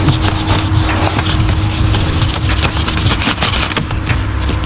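Sandpaper rubbed by hand over primer on a car body's edges, in quick, uneven scratching strokes, over a steady low hum.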